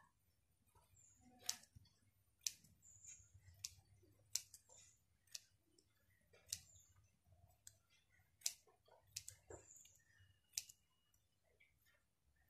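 Small scissors snipping into a folded strip of paper: faint, sharp, separate clicks, roughly one a second at an uneven pace.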